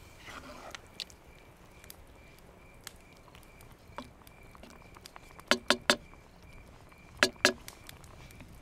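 Wooden spoon knocking against a cast-iron Dutch oven while stirring a simmering tomato sauce: three quick knocks about halfway through, then two more, over faint pops and crackles from the sauce and embers.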